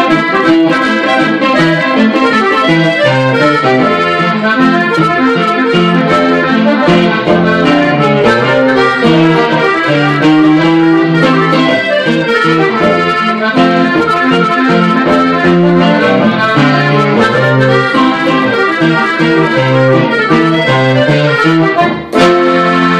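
Button accordion playing a norteño redova melody over acoustic guitar strumming. Just after 22 seconds in the music breaks off briefly and lands on a final held accordion chord.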